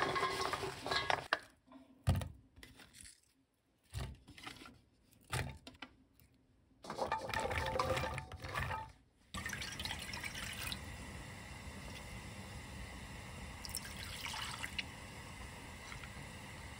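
Paper towel rustling as it pats garlic scapes dry in a steel bowl. Short bursts of cut garlic scapes dropping into a glass container follow. About nine seconds in, liquid pours into a pot, followed by a steady hiss.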